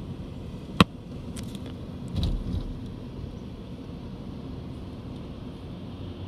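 Steady low road and engine noise inside a moving car's cabin, with a sharp click a little under a second in and a dull thump just after two seconds.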